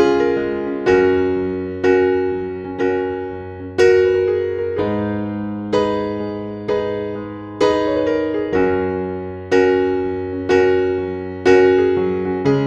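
Background music: slow, gentle electric piano with one note or chord struck about once a second and left to ring out over held chords.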